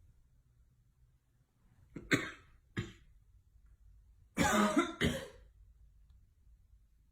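A person coughing: two short coughs about two seconds in, then a louder, longer pair of coughs with some voice in them about four and a half seconds in.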